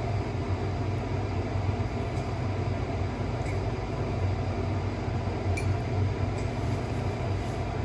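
Steady low rumble with a faint click about five and a half seconds in.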